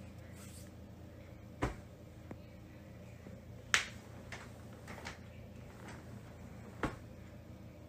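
Three sharp, brief clicks, about two seconds apart, with a few fainter ticks between them, over a low steady hum.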